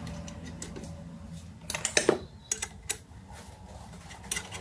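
Light metallic clicks and clinks from handling the steel clamp and drill press parts, with a cluster of louder clinks about two seconds in, over a faint low hum.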